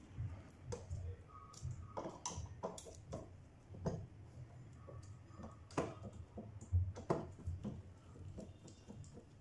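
Hand screwdriver turning screws into the metal top plate of a laboratory centrifuge, with irregular small metal clicks and taps and two sharper knocks past the middle. The screws are being driven to close the centrifuge back up after its motor's carbon brushes were changed.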